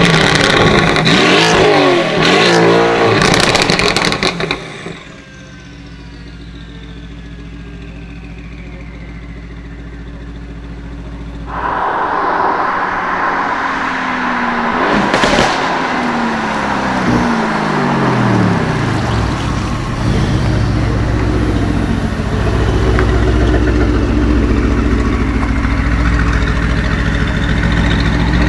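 Mercedes-AMG GT R's twin-turbo V8 revved hard through a very loud exhaust, with sharp crackles as the revs rise and fall. After about five seconds it settles to a quieter steady idle, then gets louder again about halfway through, gives a sharp crack, falls in pitch and runs on steadily.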